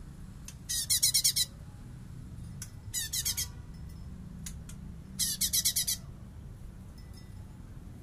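Blue-winged leafbird (cungkok) giving 'besetan' song: three short bursts of rapid, harsh, high rattling notes, about a second in, a little after three seconds and a little after five seconds, each under a second long.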